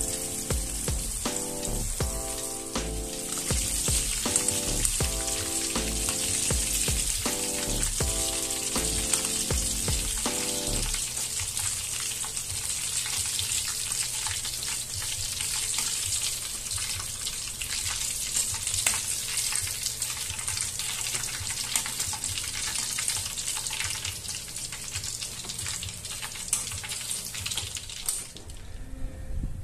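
Breaded chicken deep-frying in hot oil in a wok: a steady crackling sizzle with occasional sharp clicks. Music plays over it for the first third or so, and the sizzle stops near the end.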